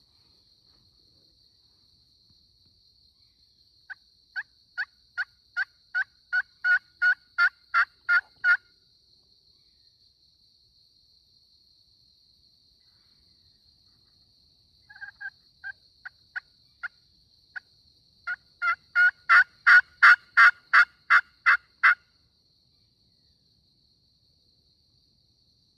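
Turkey pot call (friction call) worked by hand in two long runs of hen yelps, about three notes a second, each run building in loudness, with a few scattered yelps between them.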